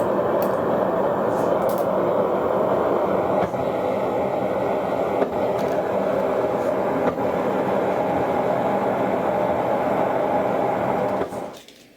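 A workshop power tool or machine motor running steadily under load, with a dense mechanical drone, that stops abruptly shortly before the end.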